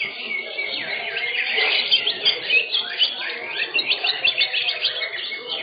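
Several caged green leafbirds (cucak hijau) singing at once in competition: a dense, overlapping stream of quick chirps, whistles and rapid trills that keeps going without a break.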